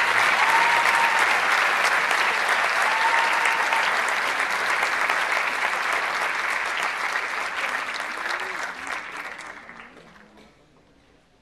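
Audience applauding, a dense steady clapping that dies away over the last few seconds.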